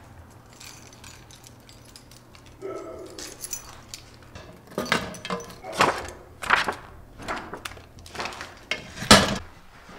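Footsteps on a hard floor with keys jangling: a run of sharp knocks and rattles, about one every three-quarters of a second, beginning about halfway in.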